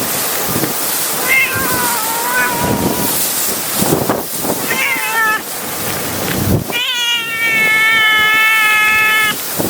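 A cat meowing four times: three short meows, then one long drawn-out meow of about two and a half seconds near the end. Strong wind buffets the microphone behind it.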